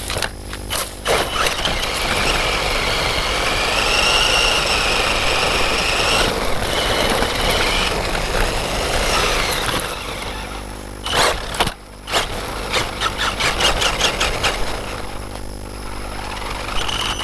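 Brushless electric drive of a Traxxas E-Revo VXL RC truck running under throttle, its whine rising and falling in pitch over a steady noisy rush. In the second half a quick run of knocks and rattles comes through, as from the chassis jolting over rough ground.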